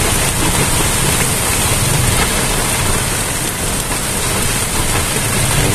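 Heavy rain falling on a vehicle's roof and windshield: a steady, dense hiss with a low rumble underneath.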